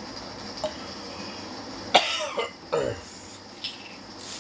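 A man coughs twice in quick succession, each cough trailing off in a short falling vocal sound. Light plastic crinkles can be heard around the coughs.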